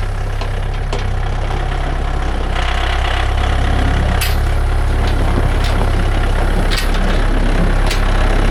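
Tractor engine running steadily and slowly growing a little louder. A thin whine joins in from about two and a half to four seconds in.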